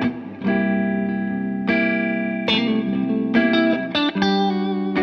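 Electric guitar played through a Morgan Dual 20 tube amplifier. After a short break just after the start, ringing chords are struck about once a second, then a quick run of single notes follows near the end. By then the guitar is a Fender Stratocaster.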